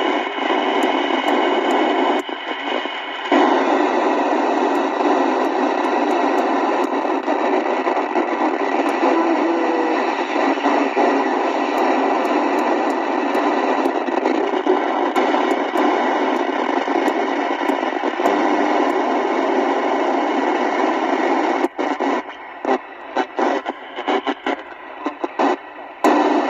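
Albrecht Alpha 4000 FM CB radio switched on and receiving, giving a steady hiss of static from its speaker. A brief dip comes about two seconds in, and near the end the hiss turns choppy, cutting in and out several times.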